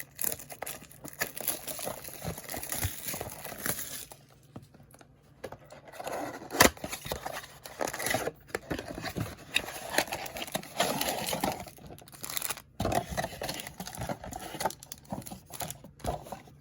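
Packaging of a trading-card blaster box being torn open and handled: irregular crinkling and tearing of wrap and packs, with a brief lull a few seconds in.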